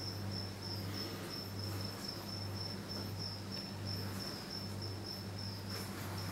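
A high-pitched insect trill with short breaks every fraction of a second, over an intermittent low hum.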